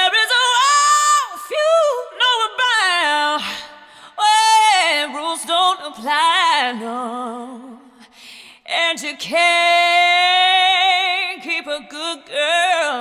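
Music with a woman singing long, wavering held notes and glides, with little accompaniment beneath.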